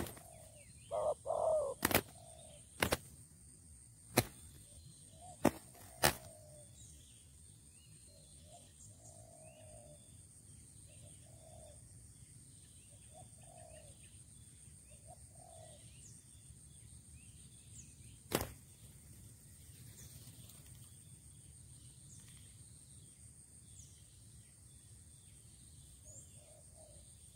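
Spotted doves: several sharp wing claps and scuffling from two doves fighting in the first few seconds, and one more clap later. Then short, soft low coos every few seconds.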